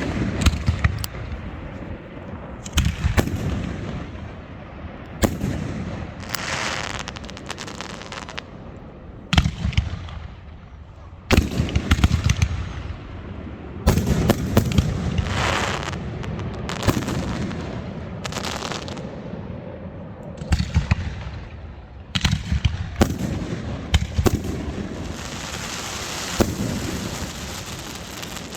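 New Year's fireworks going off: a string of sharp bangs and booms, irregularly spaced, some followed by a spell of crackling and hissing as the shells burst.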